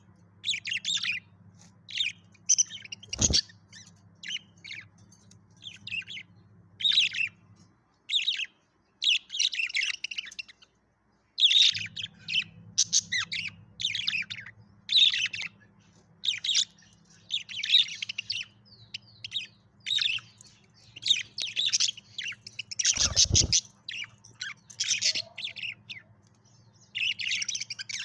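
Pet budgerigars chirping and chattering in quick, overlapping bursts, over a low steady hum that stops for a few seconds about a third of the way in. Two sharp knocks cut through, one about three seconds in and one near the end.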